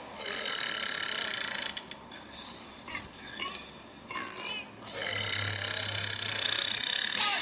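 A man burping, with a long, drawn-out belch starting about five seconds in.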